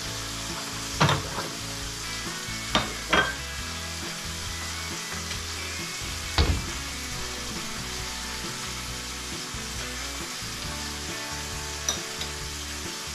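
Meat frying in a pan with a steady sizzle, broken by a few sharp knocks and clatters of crockery and cupboard, about one, three, six and twelve seconds in.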